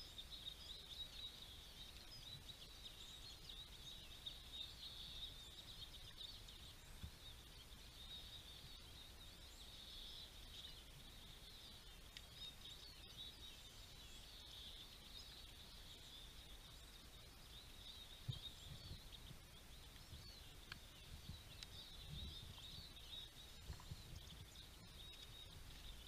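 Faint, continuous high-pitched twittering of many small songbirds at a seed feeder, with a few soft low thumps in the second half.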